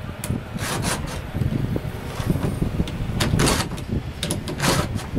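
Chain file strokes from a Codirom file-guide chainsaw sharpener pushed across the cutter teeth of a Stihl MS251C chain: short rasping scrapes, two close together near the start and two more after a pause, about three and a half seconds and four and a half seconds in. A steady low rumble runs underneath.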